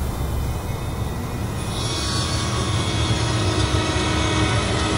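Band saw running with a steady low rumble and hiss; a brighter, higher hiss joins about two seconds in, as if the blade begins cutting.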